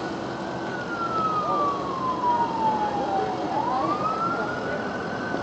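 Emergency vehicle siren on a slow wail: the tone climbs quickly, falls slowly for about three seconds, then climbs again about three and a half seconds in, over steady background noise.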